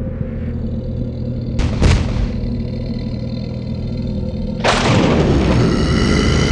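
Giant's footsteps as cartoon sound effects: deep booms over a steady low rumble, one about two seconds in and a heavier one about five seconds in that keeps rumbling afterwards.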